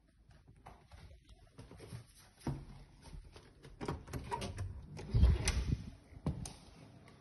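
Knocks and clicks of an interior door being handled and of walking past it, with the loudest thump a little after five seconds in.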